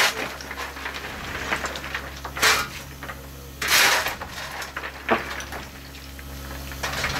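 Steam locomotive cab at the open firebox of a coal fire: a steady low hum, broken by short loud rushes of hissing noise about once a second or so, four times.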